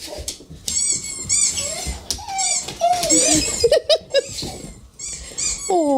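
Recorded squeaky-toy squeaks repeating over and over, high and arched, while a yellow Labrador retriever whines in excitement at the sound.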